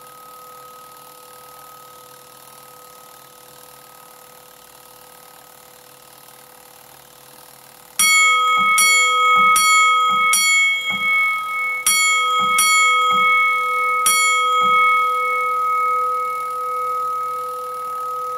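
IBM RF4025-8 8-inch fire alarm bell, driven by a Simplex coded pull station. At first its ringing hangs on and fades slowly. About eight seconds in, it rings out seven loud single strokes in a coded pattern of four, two and one, each stroke ringing on before the tone dies away.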